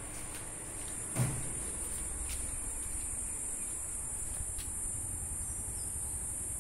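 Steady high-pitched drone of insects, with a single thump about a second in and a few faint ticks.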